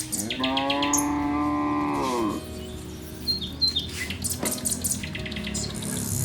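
A cow mooing once: a single call of about two seconds that rises in pitch at the start and falls away at the end.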